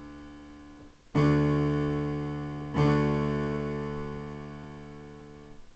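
Piano playing a D major chord (A, D, F sharp) over two Ds in the left hand, struck twice about a second and a half apart and left to ring and fade.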